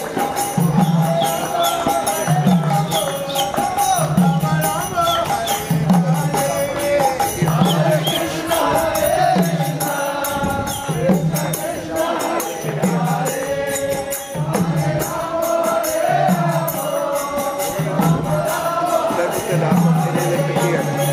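Music of chanting voices over a slow, steady drum beat, a little under one beat a second.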